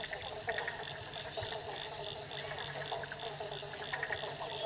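Dusk wetland chorus of many frogs calling together, with a high pulsing call repeating evenly about four to five times a second over dense lower croaking and chatter. Faint light rain hisses underneath.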